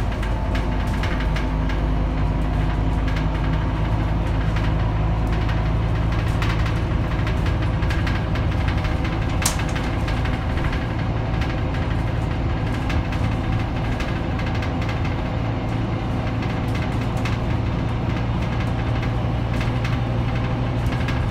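Scania K310UB city bus's diesel engine running steadily, heard from inside the passenger cabin as a constant low drone with cabin rattle; a single sharp click about nine seconds in.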